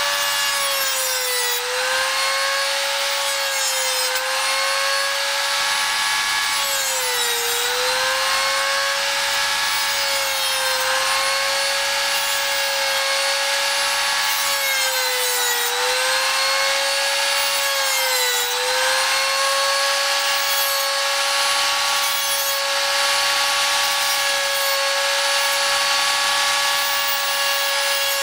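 Handheld rotary tool with a small cutting disc running at high speed with a steady whine. Its pitch sags briefly several times as the disc bites into a servo output arm, cutting off the arm's spare arms.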